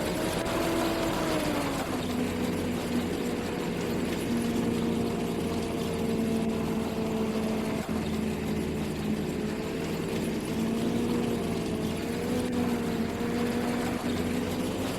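Harvesting machinery engine running steadily under load, its pitch rising briefly in the first second or so and again near the end.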